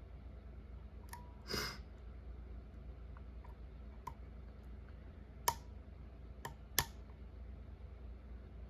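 Pin tumbler challenge lock being picked with a hook pick and tension wrench: small, sharp metallic clicks of the pick and pins, the two loudest a little over a second apart in the second half. A short breathy hiss about a second and a half in.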